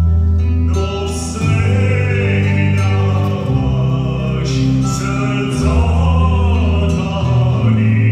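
Man singing a Bulgarian song live into a microphone over instrumental backing with sustained bass notes that change pitch every couple of seconds; the voice comes in about a second in.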